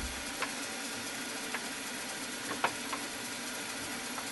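Milling machine running steadily with a drill bit in the chuck, broken by a few light, sharp metallic clicks.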